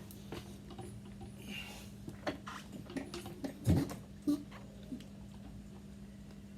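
A few scattered light clicks and knocks, the loudest about halfway through, over a faint steady hum. No engine is running.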